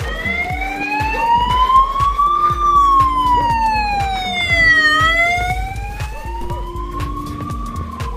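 Emergency vehicle siren wailing, its pitch rising and falling slowly, about one full rise and fall every five seconds, over background music with a steady beat.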